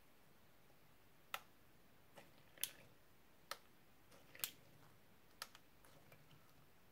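Slime being pressed and dragged with a small metal tool, giving sharp, short clicks and pops at irregular intervals, about six of them, starting about a second in.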